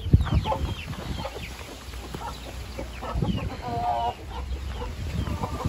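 Hint (Indian game) chickens clucking in short, scattered calls, with one longer drawn-out call about four seconds in. A few low thumps, the loudest just at the start.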